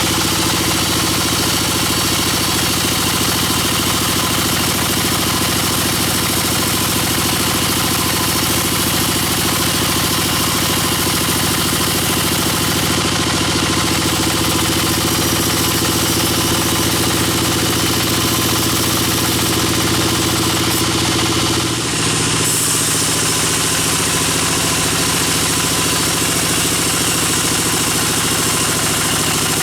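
Band sawmill machinery running steadily with an even engine-like drone, dipping briefly about three quarters of the way through.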